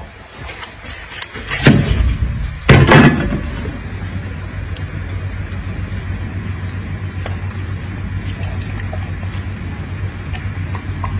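Cleaver chopping through a dragon fruit onto a wooden cutting board: two heavy knocks about a second apart, the second the loudest. Then faint ticks and rustles as the cut fruit is handled, over a steady low hum.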